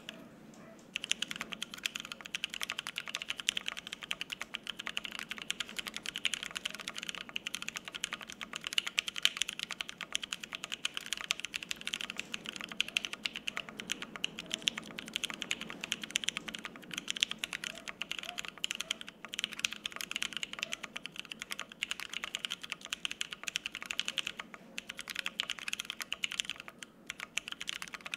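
Steady fast typing on a custom Bear 65% ergo mechanical keyboard with lubed, filmed Penguin tactile switches on an FR-4 plate and GMK double-shot ABS keycaps, with no plate or case foam. The typing starts about a second in and runs on with only brief pauses near the end.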